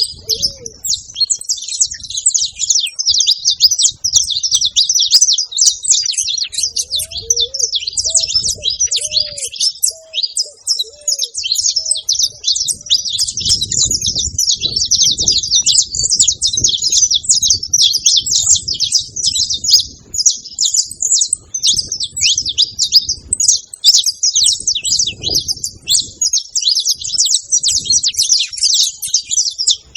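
Saffron finch singing a dense, continuous stream of high chirps. Below it a ruddy ground dove coos in short, low, repeated notes, near the start and again in a run a quarter of the way in.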